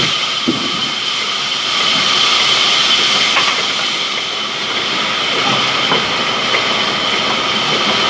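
Sawmill band saw running with a steady high whine and hiss, with a few short knocks as the log is shifted on the saw carriage.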